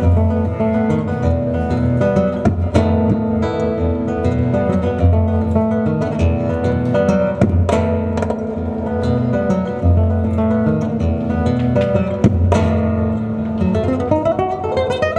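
Nylon-string classical guitar played solo: fingerpicked melody over bass notes, with a few sharp strummed chords standing out.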